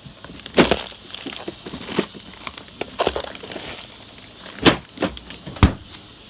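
Kitchen items and packaging being handled: a handful of sharp knocks and clatters, three of them loud, with some crinkling of packaging between them.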